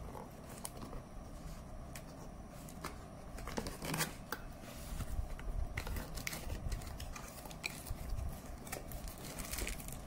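A small cardboard box being opened by hand: flaps scraping and clicking, with scattered light taps and rustling as the box is handled.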